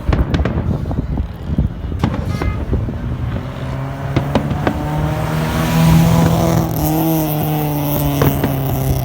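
A motor vehicle's engine drones past, swelling and rising slightly in pitch, then falling away over several seconds. Scattered sharp cracks of fireworks sound throughout.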